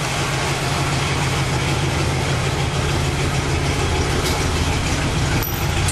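1967 Oldsmobile Delmont 88's 425 cubic inch V8 idling steadily, still warming up after a cold start.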